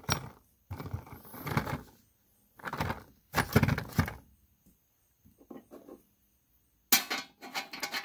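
Sheet-metal transmission oil pan shifted and handled on a wooden bench: a series of separate clanks, knocks and scrapes of metal on wood, with faster rattly clicking near the end as a hand works the drain plug in the welded-in bung.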